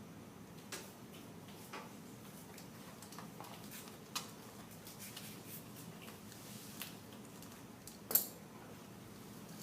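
Light scattered clicks and taps from handling yeast packets and the bottle as yeast is emptied into warm water, with one sharper tap about eight seconds in.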